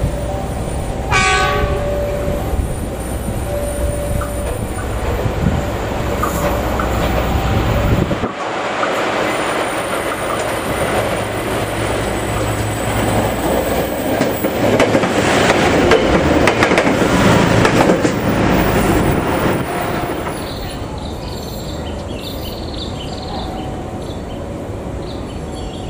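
Yellow diesel track-maintenance machines running on the rails. There is a short horn toot about a second in, then steady engine and wheel noise that is loudest as a machine rolls past around the middle.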